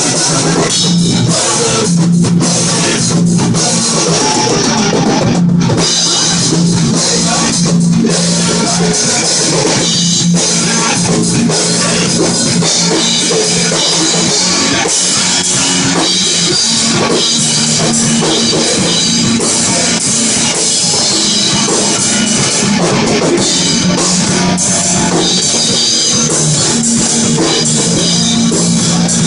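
Rock music with a full drum kit and guitar, played loud and without a break.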